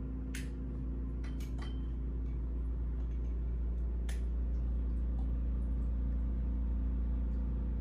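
A steady low rumble with a faint hum, and a few soft clicks in the first half.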